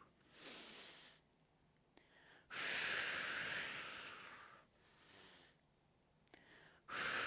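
A woman breathing deeply and audibly in time with a yoga stretch. First a short breath, then a long, loudest one about two and a half seconds in, a faint short one, and another long breath near the end.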